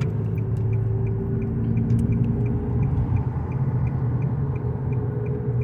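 Worn wheel bearing on a Nissan Rogue rumbling as the car rolls on smooth pavement, heard from inside the cabin as a steady low drone with a faint hum above it. The bearing is on the driver's side.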